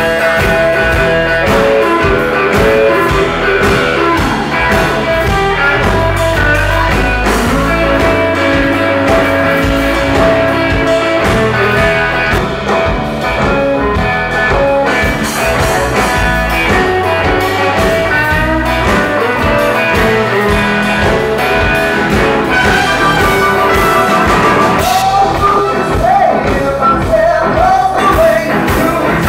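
A live band playing a soul-rock number: electric guitar to the fore over bass guitar and drum kit, with singing.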